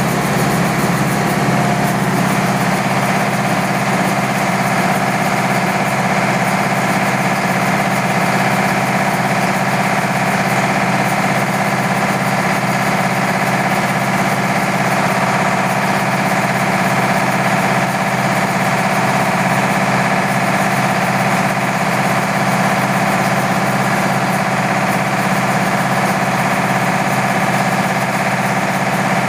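Small rice mill running steadily under load: a Yanmar TF 300 single-cylinder diesel engine drives a YMM 20 rice huller and its grain elevator, giving a loud, even drone with a low hum and the whir of the mill.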